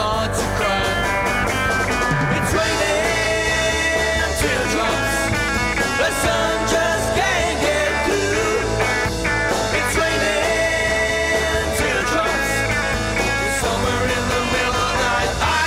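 A rock duo plays a 1960s psychedelic-pop song: a hollow-body electric guitar through an amplifier and a Ludwig drum kit.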